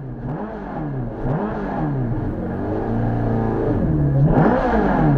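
Ferrari F430 GT3's V8 engine revved in repeated throttle blips while the car is held at a standstill before the launch, heard from inside the cockpit; the pitch swings up and down about once a second, climbing higher near the end.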